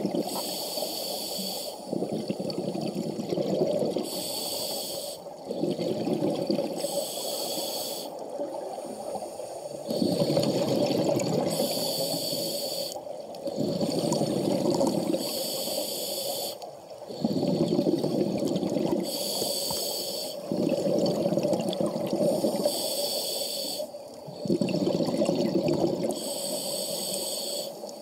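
Scuba regulator breathing underwater: a hissing inhalation through the regulator alternates with a burst of bubbling exhaust, in a slow, even rhythm of about one breath every three to four seconds.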